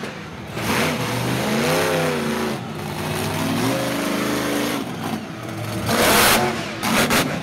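Monster truck engine revving hard, its pitch rising and falling in several surges, with two louder bursts near the end as the truck goes over the junk cars.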